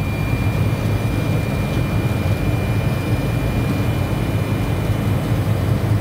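Walk-in freezer condensing unit running during a pump-down: the compressor and condenser fan give a steady low hum as the low side is pulled down with the receiver valve front-seated.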